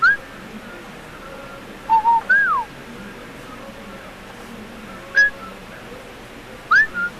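A man whistling idly through pursed lips in short, scattered snatches with pauses between: a rising note at the start, two short low notes and an up-and-down swoop about two seconds in, a single note about five seconds in, and a rising note followed by a short one near the end.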